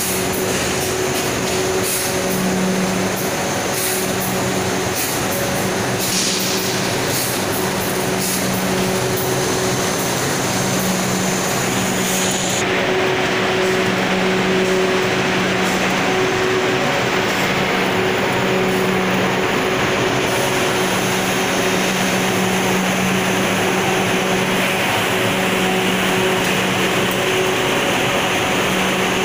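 Quail egg processing line machinery running: the boiling, cooling and peeling equipment makes a steady hum with a low tone that comes and goes in roughly one-second pulses over a constant hiss. The hiss grows fuller about halfway through.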